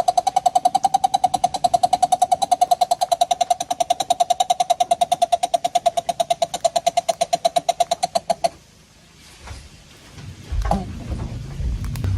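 A coucal giving a fast, even run of pulsed notes on one steady pitch, which stops about eight and a half seconds in. Faint low rumbling and a knock or two follow near the end.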